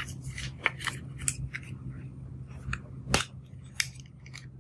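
Sharp clicks and crackles as hands handle clear slime and a plastic blush compact, with one louder click a little after three seconds in.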